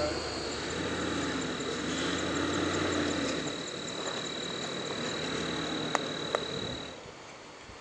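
2023 Ford Super Duty pickup's engine running low and steady while crawling over rocks, fading out about halfway through. Behind it runs a steady high insect drone with faint regular chirps, and two sharp clicks come near the end.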